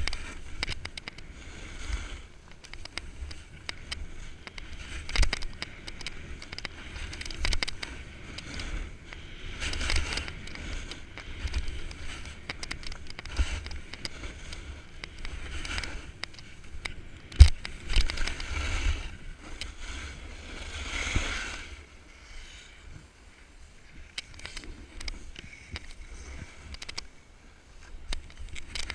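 Snowboard sliding and carving on packed snow, its edge scraping in repeated swells, with wind rumbling on the body-mounted camera's microphone. A sharp knock a little past halfway.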